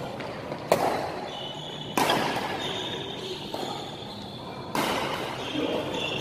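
Badminton rally: rackets strike the shuttlecock three times, each a sharp crack that echoes round a large hall. Short high squeaks of shoes on the court come between the shots.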